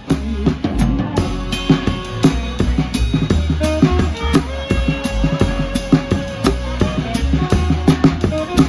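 Live band playing with the drum kit to the fore, heard from beside the kit: kick, snare and cymbals keeping a steady beat under the other instruments.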